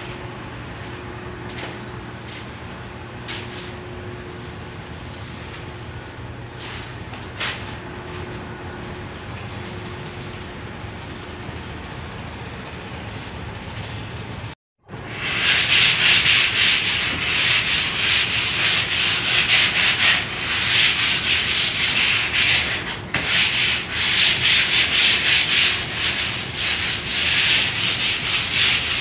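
Hand sanding of a puttied ceiling, rapid back-and-forth scraping strokes that start loud about halfway through. Before that there is only a quiet background with a faint hum.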